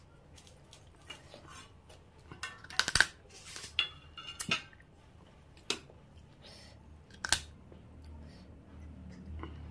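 Cooked crab shell cracked and crunched between the teeth while eating: a series of sharp cracks and snaps, the loudest about three seconds in, with quieter chewing between.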